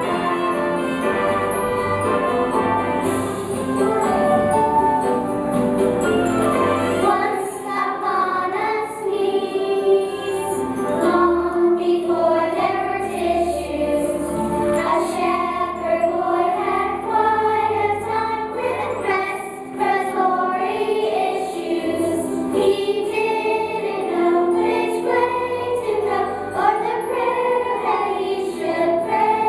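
A choir sings the opening song of a Christmas musical over instrumental accompaniment. The voices come in strongly about seven seconds in.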